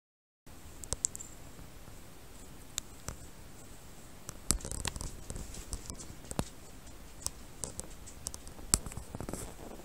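Small bell on a kitten's collar giving irregular light clicks and brief tinkles as the kitten moves, with soft rustling on bedding.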